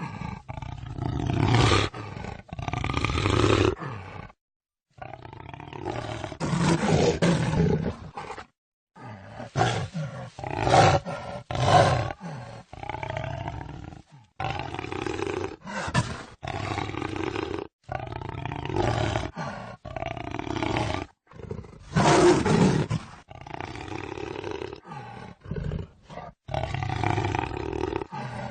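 Jaguar roaring in a string of separate calls, each a second or two long, with a few short silent breaks between them.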